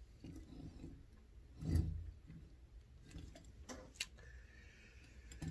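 Light handling noises at a wooden table: a soft thump about two seconds in, then a few sharp clicks around four seconds in.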